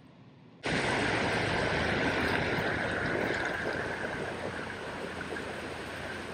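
Rushing floodwater, starting suddenly about half a second in as a steady noise that eases slightly over the following seconds.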